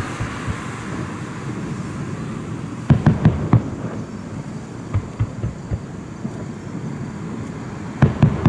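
Fireworks bursting some way off: groups of low booms, a cluster about three seconds in, a few more around five seconds and another cluster near the end, over a steady low rumble.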